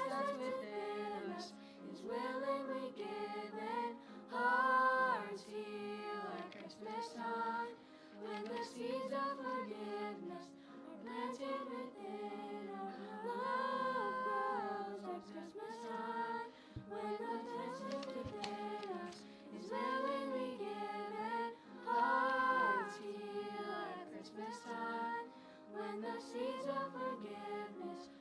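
Choir singing together, with notes held and shifting about once a second.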